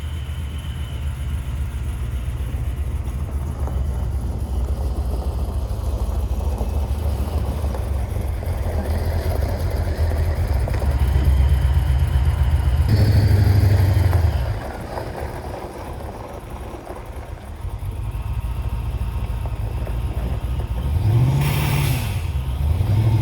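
Supercharged Chevrolet LT1 V8 running with a steady low rumble, the engine now starting and running once its fuel pump works. It grows louder for a moment about two thirds of the way in, and near the end two quick throttle blips rise and fall, with a short hiss.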